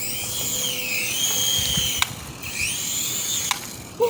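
Small toy drone's electric motors and propellers whining at high pitch, the pitch swinging down and up with the throttle. There is a sharp tick about halfway, and the whine dies away near the end.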